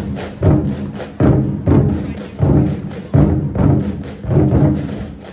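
Twenty-Four Festive Drums ensemble playing large Chinese drums: heavy booming strokes struck together about every two-thirds of a second, each ringing out, with lighter sharp hits between them.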